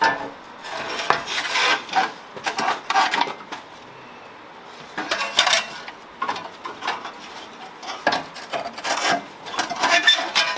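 Ratchet wrench clicking in short bursts, with metal tool clinks, as spark plugs are backed out of the cylinder head.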